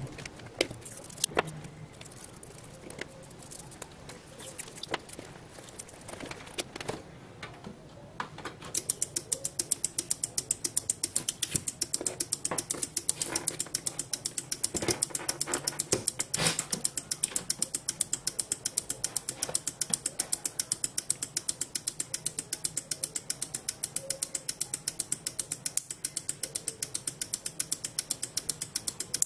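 Three relays in a relay-based LED chaser circuit clicking in a fast, even rhythm as they switch one after another. The clicking starts abruptly about nine seconds in, when the 12-volt supply is switched on; before that there are only scattered light clicks of wires being handled.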